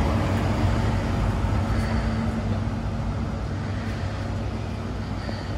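Diesel High Speed Train with a Class 43 power car running past along the platform. The steady engine and wheel noise fades gradually as the power car moves away.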